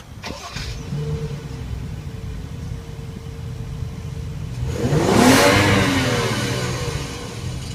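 2014 BMW 535i's 3.0-litre turbocharged straight-six idling steadily through its exhaust, then revved once about five seconds in, the pitch rising and falling back to idle.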